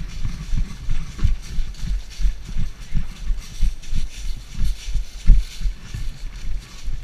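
Footsteps of the person wearing the camera, walking briskly or jogging: regular low thuds about three a second, with gear and clothing rustling.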